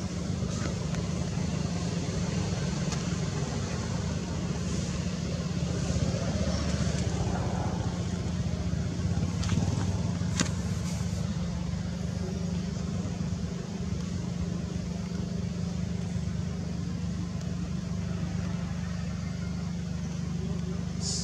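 Steady low rumble of background noise, with a single sharp click about ten seconds in.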